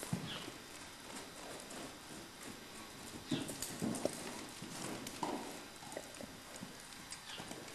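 Hoofbeats of a Morgan stallion trotting and cantering loose on arena dirt: an uneven run of dull strikes, loudest about three to four seconds in.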